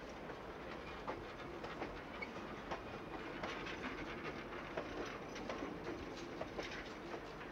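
Passenger cars of a train rolling past, their wheels clicking again and again over rail joints above a steady rumble.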